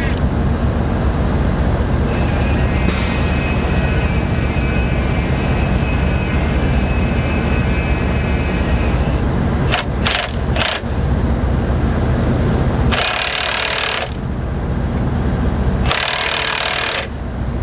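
Nut on a forklift lift-chain anchor being run down tight: a power tool runs in two short bursts about a second long, with a few sharp clicks before them. A steady low engine-like hum runs underneath, with a thin high whine for several seconds early on.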